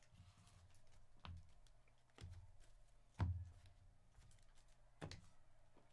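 Near silence broken by a few faint taps and clicks of trading cards being handled and set down on stacks on a tabletop, the loudest a little past the middle.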